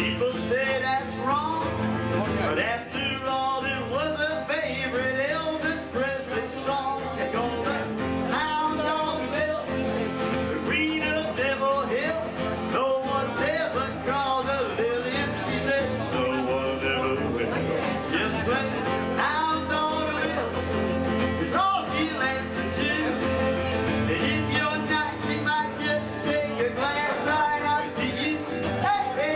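A man singing a country song to his own strummed acoustic guitar.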